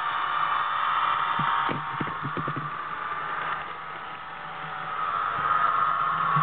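HO scale Union Pacific SD70ACe model locomotive running with its onboard sound: a steady diesel engine drone with a hiss over it, and a quick run of clicks about two seconds in. The sound dips a little in the middle and grows louder again near the end.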